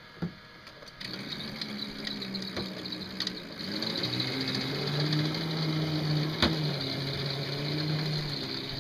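Homemade battery-electric bulldozer's drive motor humming with a high whine as it pushes a blade-load of dirt, starting about a second in. Its pitch drops and it grows louder about four seconds in as the load builds.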